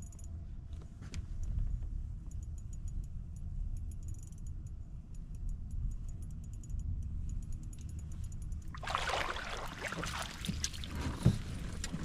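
Wind rumbling on the microphone, with faint rapid ticking above it. About nine seconds in, a louder rustling, clattering noise with sharp clicks begins.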